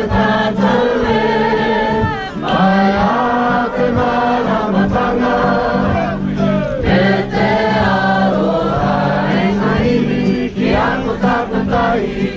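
Background music of a choir singing: several voices together over a steady low drone.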